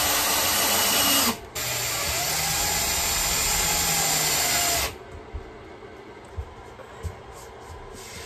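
Ryobi cordless drill running into a plywood wall panel in two runs, a short one that stops about a second in and a longer one whose motor pitch rises and then falls, ending about halfway through. A few light knocks follow.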